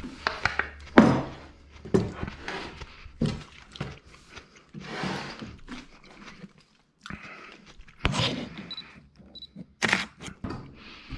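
Irregular thunks and knocks of a salad bowl and a camera being handled and set down on a wooden tabletop, with some rustling of cloth.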